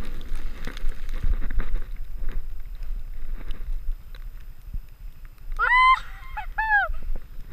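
Low wind rumble on the microphone with scattered knocks and clicks from a moving, handled camera. About six seconds in come three or four short, high honk-like calls, the first rising and the last falling away.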